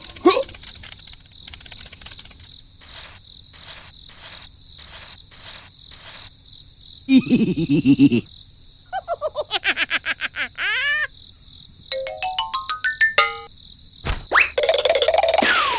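Steady high chirring of crickets, pulsing every so often. Over it come several electronic sound effects: a low falling buzz about halfway through, a run of quick falling chirps, a rising step-by-step scale of blips, and a falling glide near the end.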